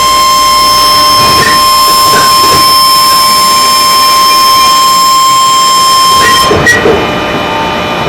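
JR 205 electric commuter train giving off a loud, steady high-pitched whine with overtones, the strange noise the uploader asks about. The whine cuts off about six and a half seconds in, with a sharp knock.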